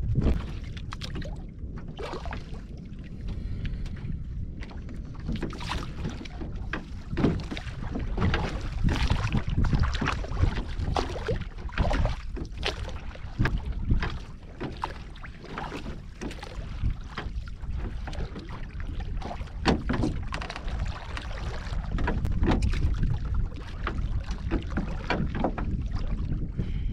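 Wind rumbling on the microphone and choppy water slapping against the wooden hull of a small fishing boat, with frequent short knocks and splashes.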